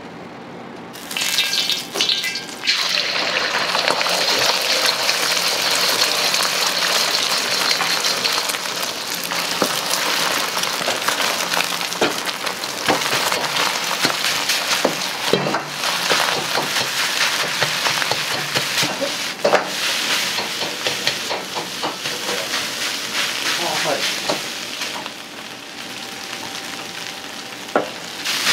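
Beaten egg hits hot oil in a wok with a sudden loud sizzle about a second in, and the frying sizzle keeps up as egg fried rice is stir-fried, with the ladle clanking and scraping against the wok. The sizzle drops for a few seconds near the end before rising again.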